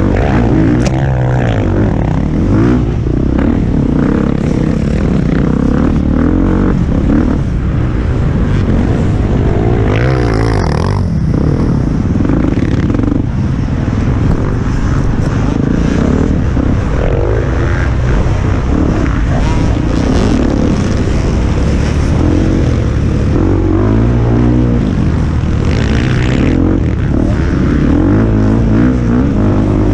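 Enduro motorcycle engine heard up close from the rider's helmet, revving up and down again and again as it is ridden hard over a dirt track.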